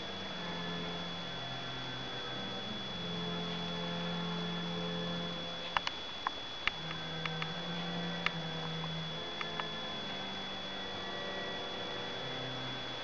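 A steady electrical hum with a thin high whine, low tones that come and go, and a few sharp clicks about halfway through.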